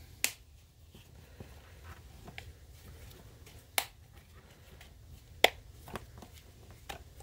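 The plastic plate on a Jeep Grand Cherokee ZJ power mirror motor snapping into its clips under thumb pressure. There are three sharp clicks, one right at the start, one past the middle and one later, with fainter clicks and plastic handling sounds between them.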